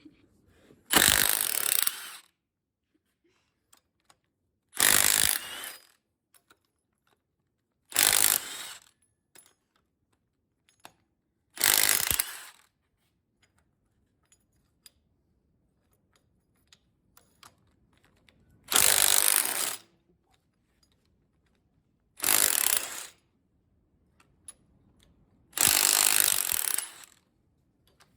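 Power wrench spinning out bolts on a big-block Chevy 454 during engine teardown, run in seven short bursts of about a second each with pauses between.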